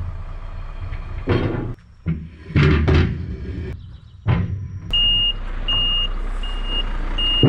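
Heavy wooden loading ramps knocked and shifted into place on a low-loader trailer, a few hard clunks. About two-thirds of the way in, a truck's reversing alarm starts beeping, one short high beep every three-quarters of a second or so, over the low running of a diesel engine.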